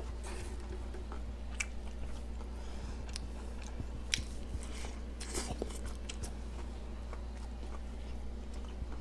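A person chewing and biting into a bacon cheeseburger close to the microphone, with a few sharp crunchy crackles over a steady low hum.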